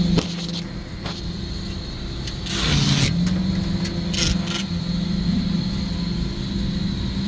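Steady low hum of refrigeration machinery, with a brief rustling swish about two and a half seconds in and a shorter one about four seconds in.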